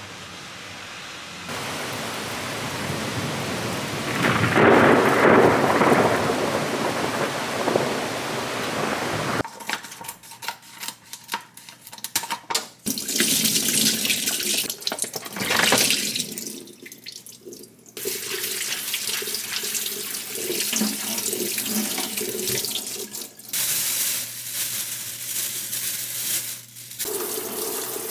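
Steady rain pouring down, with a loud rumble that swells and fades in the middle of it. Then, in a kitchen sink, peeled quail eggs tumble and clatter into a metal mesh strainer. A tap runs in spells as the eggs and then green chili peppers are rinsed under it.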